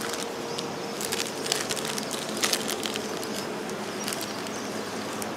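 Plastic zip-top bag crinkling in scattered bursts as crappie pieces are shaken in breading and seasoning mix, over a steady outdoor hiss.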